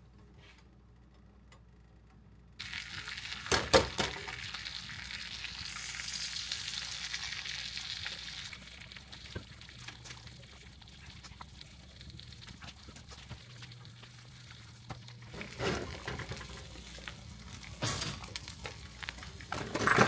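Food frying in a hot pan. The sizzling starts suddenly about two and a half seconds in, is loudest for the next few seconds, then settles to a steadier, quieter sizzle. A few sharp knocks come through it.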